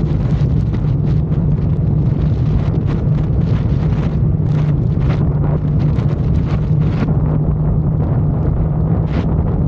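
Motorcycle running steadily on the move, with heavy wind buffeting the microphone in repeated gusts.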